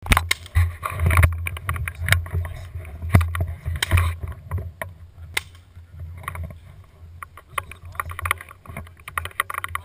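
Handling noise from an action camera mounted on a paintball marker's barrel as the marker is carried: a steady low rumble with irregular knocks and clicks.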